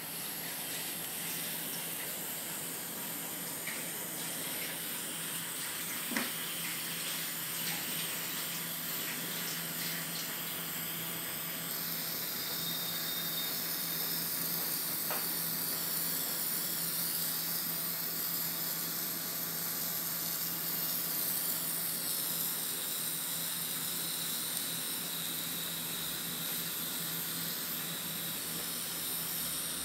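Make-up airbrush spraying: a steady hiss of air, with a low motor hum underneath.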